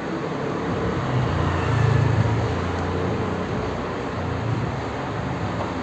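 A motor vehicle's engine running steadily in the background, its low hum swelling a little about two seconds in, over general traffic noise.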